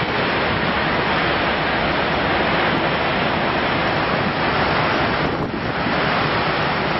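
Churning wake of a large passenger ferry under way: a steady rush of foaming water, mixed with wind buffeting the microphone.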